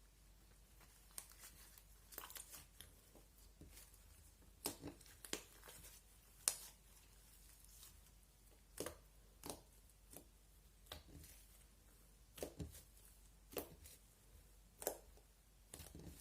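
Slime being pressed and stretched by hand, giving short sticky pops and crackles at irregular intervals, about a dozen over the stretch.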